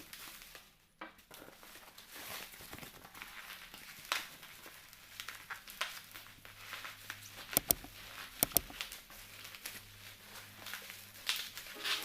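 Plastic packaging crinkling and rustling as household items are unpacked by hand, with small knocks and two quick pairs of sharp clicks a little past the middle.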